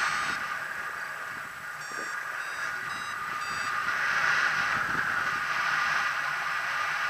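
Flight wind rushing steadily over the microphone of a paraglider in flight, with a variometer sounding about four short beeps at different pitches between two and four seconds in. That beeping signals that the glider is climbing in lift.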